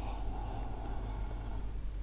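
Steady low hum with a faint hiss: room tone, with no taps or crunches.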